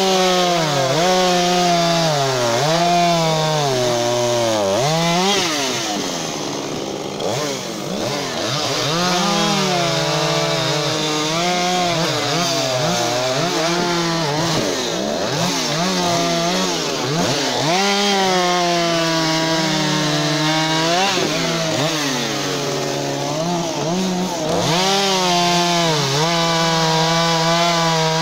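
Husqvarna two-stroke chainsaw cutting through logs, its engine pitch repeatedly sagging as the chain bites and rising again, with a few steadier stretches at high revs.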